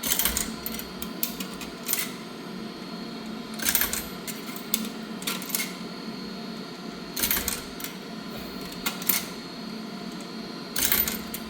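Quarters clicking and clattering in the coin slot of a coin-operated dryer, a string of sharp clicks every second or two over a steady hum. The coin mechanism is not taking the quarters.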